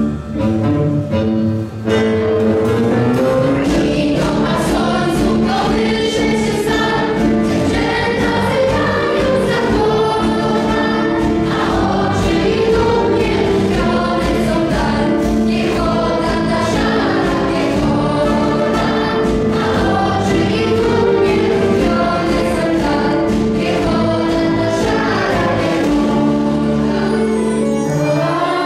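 Large choir singing a Polish patriotic song in Polish, accompanied by a symphony orchestra.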